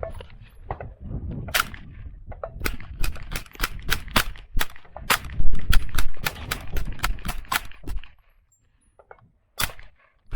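HK MP5 .22LR rifle fired in rapid semi-automatic succession: a string of about twenty sharp shots, roughly three to four a second, then a pause and a single shot near the end, over a low rumble.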